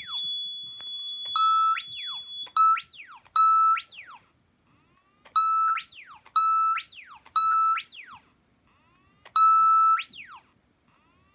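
EST Genesis speaker strobe sounding a fire alarm from a security panel's siren tone generator, set on its quietest quarter-watt tap. It gives about eight loud electronic siren blasts, each a held tone that sweeps up and falls back, in uneven bursts that stop about ten seconds in. A steady high beep runs alongside for the first couple of seconds.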